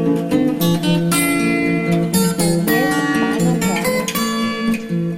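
Background music: a strummed acoustic guitar playing a run of chords.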